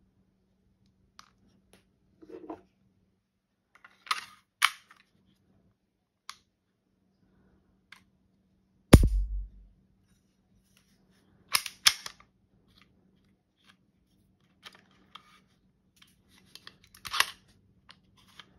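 Scattered sharp clicks and clacks of a Hi-Point C9 9mm pistol being handled, with one loud snap and thud about nine seconds in and small clusters of clicks around four, twelve and seventeen seconds.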